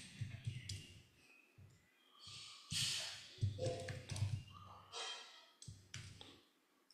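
Computer keyboard typing in short irregular bursts, with scattered clicks and gaps between.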